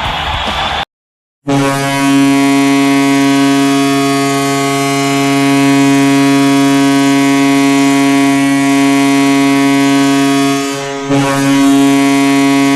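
Tampa Bay Lightning arena goal horn: a loud, deep, steady horn blast that holds for about nine seconds, breaks off briefly near the end, then sounds again. Before it, a brief end of music and crowd noise cuts to silence.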